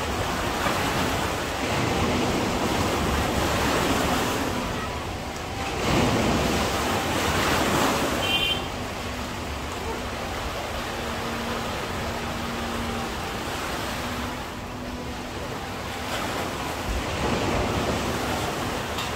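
Sea waves breaking and washing up a beach, the surf swelling and falling back, loudest about six to eight seconds in, with wind buffeting the microphone.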